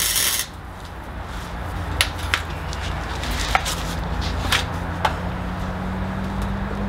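An angle grinder cutting the exhaust metal stops about half a second in. After that come a low background hum and scattered sharp metallic clicks and knocks, about five, from tools and exhaust parts being handled under the car.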